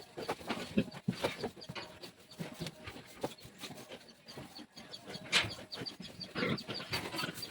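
Farmyard animal sounds: chickens clucking among scattered short knocks and rustles, with a run of faint, quick high chirps.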